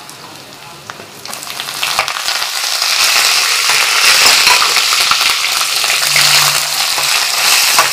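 Curry leaves dropped into hot oil with spluttering mustard seeds and cumin in a tempering: quiet at first, then a loud sizzle full of small pops builds from about a second in and holds steady.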